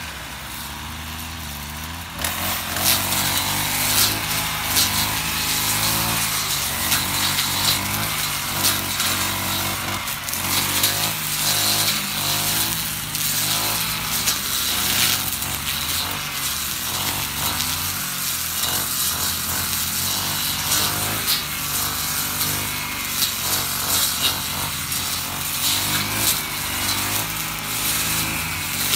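Honda UMK450T brush cutter with a GX50 four-stroke engine, running on the throttle while its two-tooth blade slashes through tall grass and weeds, with sharp ticks as stems are hit. The engine is lower for about the first two seconds, then revs up and stays loud, its pitch rising and falling as it works.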